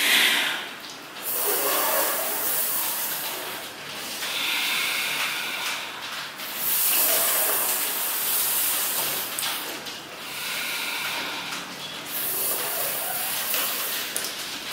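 Two people doing Sitali pranayama breathing: long hissing in-breaths drawn through the curled tongue or the teeth, alternating with out-breaths through the nose, repeating several times.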